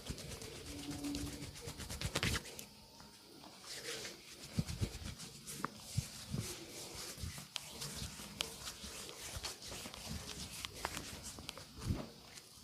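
Hands working on a body during a massage: irregular pats, taps and rubbing on skin and clothing, with sharp short clicks scattered throughout.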